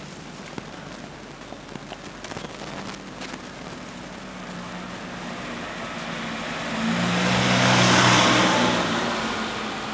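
A car passing by: its engine and tyre noise swells to a peak about eight seconds in, then fades away over a steady background hiss.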